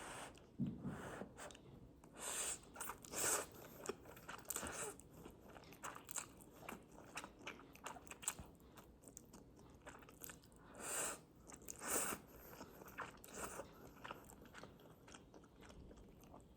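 A person biting and chewing crunchy food: irregular crunches and clicks, with a few louder bites.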